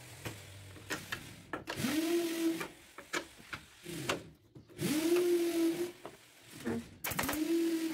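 A small machine motor runs in three short bursts, each about a second long, spinning up quickly to a steady whine over a hiss.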